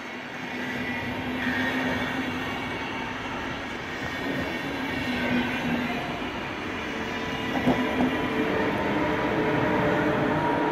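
SBB passenger train of EW IV coaches rolling past with a steady rumble of wheels on rail, and a few clacks over rail joints about eight seconds in. Near the end the Re 460 electric locomotive pushing at the rear draws level.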